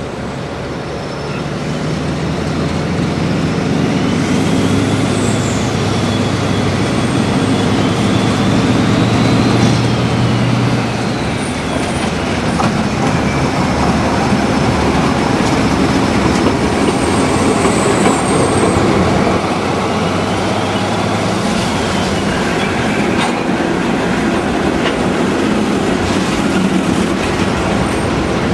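Digitised Jouef model draisine running along model railway track while pushing a wagon, its motor and wheels giving a steady running hum. The low hum shifts in pitch a few times, and a faint high whine slowly rises and falls as the speed changes.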